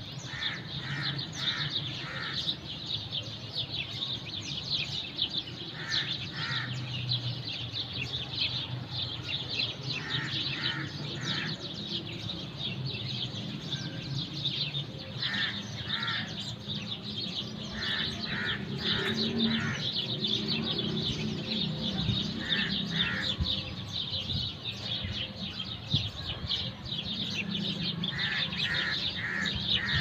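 A chorus of many small birds chirping continuously, with a louder bird calling in short runs of two to four notes every few seconds. A low steady rumble runs underneath.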